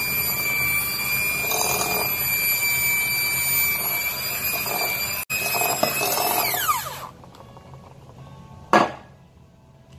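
Electric hand mixer running on its lowest speed, a steady whine as its beaters mix flour into egg-and-sugar batter in a glass bowl. The motor winds down and stops about seven seconds in, and a single sharp knock follows shortly after.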